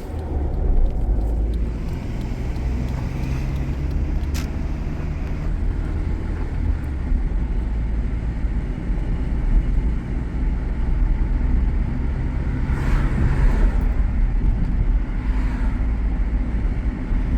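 Honda Civic engine and road noise heard from inside the cabin while driving, a steady low rumble. The engine has rod knock, the sign of a worn connecting-rod bearing. A single sharp click comes about four seconds in.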